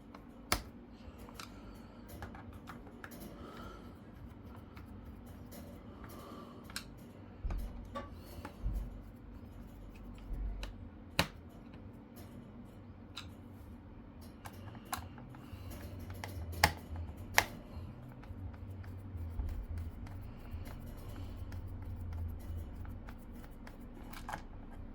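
Scattered small clicks and taps of screws and a screwdriver being worked into a laptop's plastic case during reassembly, with a few sharper clicks standing out.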